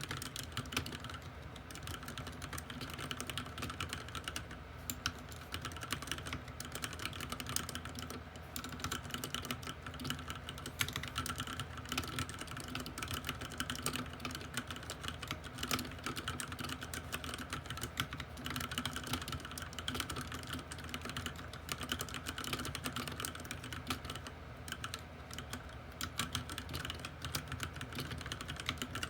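Ducky One 2 TKL mechanical keyboard with Cherry MX Red linear switches and white PBT keycaps being typed on quickly and without pause: a dense, continuous stream of key clacks.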